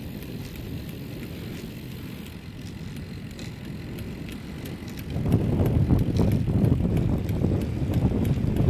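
Wind rushing over the microphone and road noise during a bicycle ride; the rumbling noise gets much louder about five seconds in.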